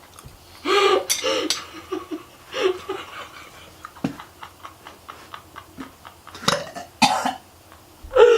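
A man coughing in several short fits, the loudest about a second in, in reaction to a mouthful of food he finds disgusting.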